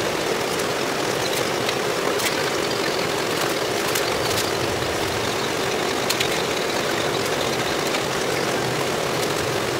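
A steady machine hum with air noise, such as a running fan, unchanged throughout. Over it come a few faint crinkles and clicks as glossy vinyl wrap film is stretched and handled over a car hood.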